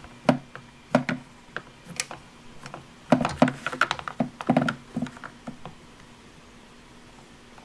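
Hard plastic clicks and taps as a Play-Doh tooth mold is handled and pressed onto the dough on the plastic dentist playset: a few single knocks, then a quick cluster about three to five seconds in.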